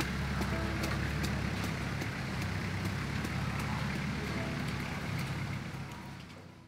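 Steady low rumble of outdoor background noise with scattered faint clicks, fading out near the end.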